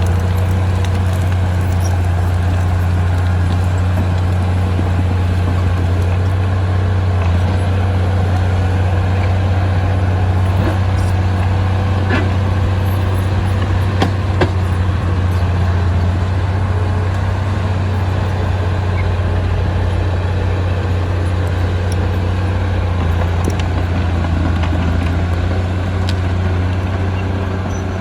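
Diesel engine of a D20P bulldozer running steadily under load, a constant low drone. Two short sharp clicks come about halfway through.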